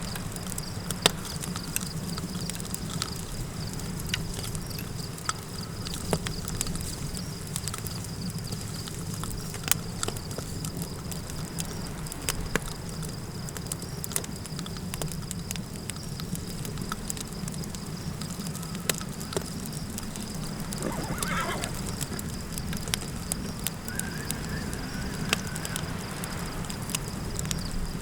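Campfire crackling with scattered sharp pops over a steady low wind rumble and a thin, steady high insect drone. About three-quarters of the way through, a horse gives one quavering whinny.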